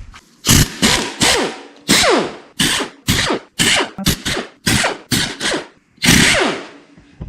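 A handheld power tool loosening fasteners on an engine, triggered in about a dozen short bursts, its motor whine falling in pitch as it spins down after each one.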